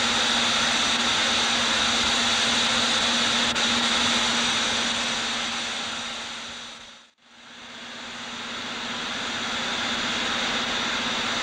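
Steady hissing roar of steam escaping from steam locomotives standing in steam in an engine shed. It fades away to silence about seven seconds in, then fades back up.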